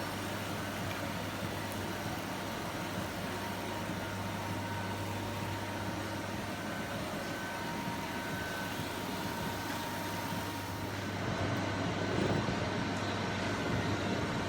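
Steady low mechanical hum under a haze of background noise. About eleven seconds in the high hiss drops away and the sound gets slightly louder.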